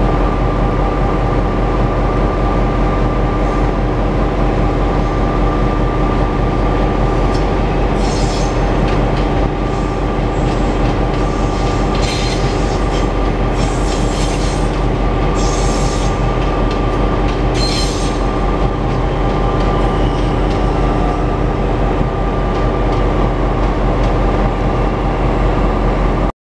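Queensland Rail 2400-class diesel-electric locomotive standing at idle, its engine giving a steady hum with a constant whine. Several short hisses come in the middle.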